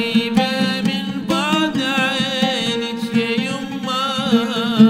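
A man singing an Arabic song in long, wavering, ornamented lines, with an oud plucked underneath him.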